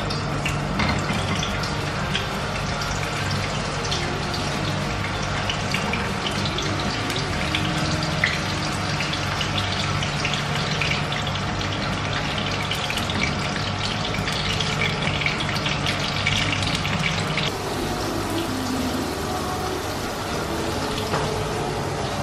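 Vegetables frying in hot oil in a frying pan: a steady sizzle dotted with small crackles and pops of spattering oil.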